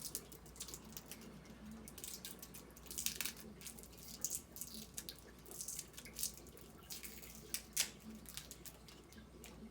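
Individually wrapped chewy fruit candies being picked out and handled close to the microphone: irregular crinkling of the wrappers with many small sharp crackles, the loudest snap nearly 8 seconds in.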